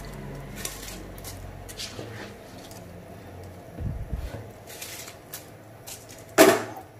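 Handfuls of washed, wet rice scooped from a steel bowl and dropped into a pot of coconut-milk broth: soft, scattered crackling and rustling of wet grains over a faint steady low hum, with one sudden louder thump near the end.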